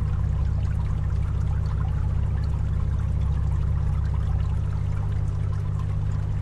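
Fan with a water cooling system running steadily: a constant low motor hum under water trickling and splashing.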